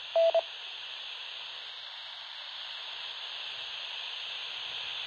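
Baofeng handheld transceiver's speaker hissing with steady static, its squelch held open on the repeater channel after the last transmission. A short two-part beep, the repeater's courtesy tone, sounds just after the start.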